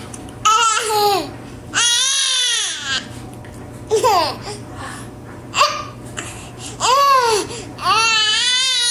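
A baby's high-pitched squeals and wails: about six rising-and-falling cries, two of them drawn out for about a second, with short sharp squeaks between.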